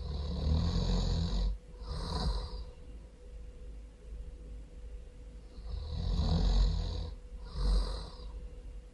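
A person snoring loudly in two slow cycles. Each is a long snore of about a second and a half followed by a shorter one; the second cycle begins about five and a half seconds in.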